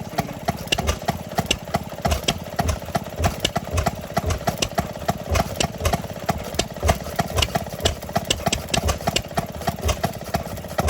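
Antique stationary gas engine running, with a steady knock of sharp clicks and low thumps about three beats a second.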